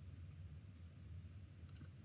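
Near silence: a steady low hum, with a few faint ticks near the end.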